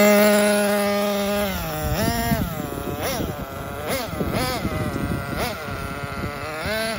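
LRP S8 Rebel 1/8-scale nitro buggy's glow engine idling steadily, then, about two seconds in, pulling away on short throttle blips, the revs rising and falling about once a second and fading as it moves off. It is on light throttle during break-in.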